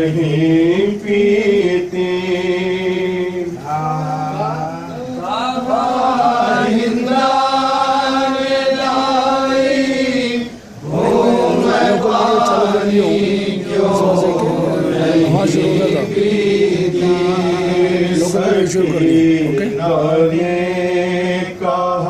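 Men's voices chanting a noha, a Shia lament, in long held, wavering lines without instruments; a short break for breath about ten seconds in.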